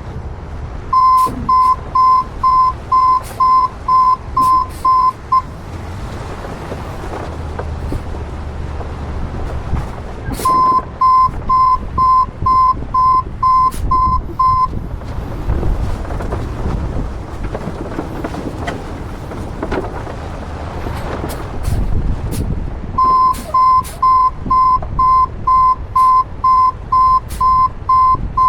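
Truck reversing alarm beeping about twice a second in three runs, each lasting several seconds, stopping and starting again as the vehicle backs up in stages. A low engine rumble runs underneath.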